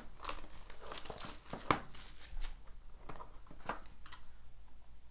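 Trading-card box and pack wrapper being torn open and crinkled by hand: a run of short rustling tears and crinkles that die away about four seconds in.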